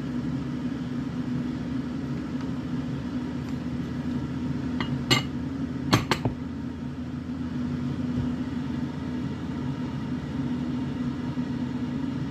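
A steady background hum runs throughout. About five seconds in there is a sharp click, then a pair of quick clinks about a second later, from a soft-plastic bait mold and freshly shot baits being handled.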